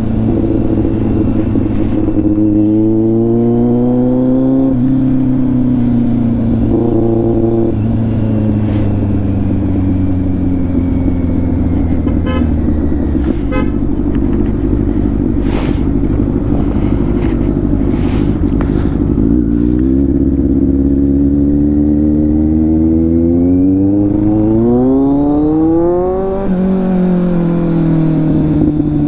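Superbike engine on the move, revving up and easing off, its pitch climbing and dropping several times as it works through the gears, with a sharp climb in revs near the end.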